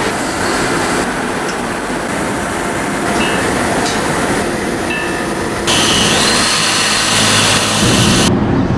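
Loud, steady factory noise, a dense hiss and rumble of air and machinery, with a few short faint beeps. The sound shifts abruptly about six seconds in.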